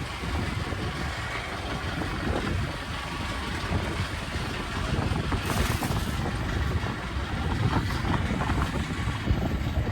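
Fishing boat at sea: a steady low rumble with a wash of wind and water noise, and a brief louder hiss about halfway through.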